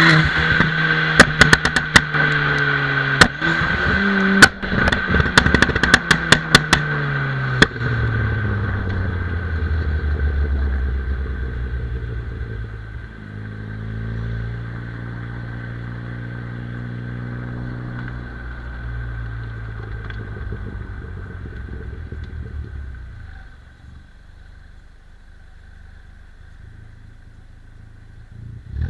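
Tuned Ford Fiesta ST engine and exhaust coming off high revs, with a rapid series of sharp pops and bangs on the overrun through the first several seconds. The engine then runs on at lower revs, rising and falling a little, and drops quieter near the end.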